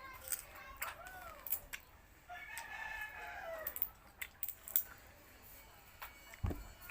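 A rooster crowing twice, two long arched calls. A few sharp clicks and a dull low thump near the end.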